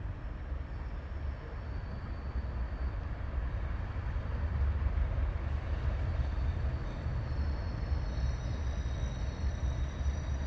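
Class 37 diesel locomotive's English Electric V12 engine running under power, a deep steady rumble growing louder. A thin high whine joins in about two-thirds of the way through.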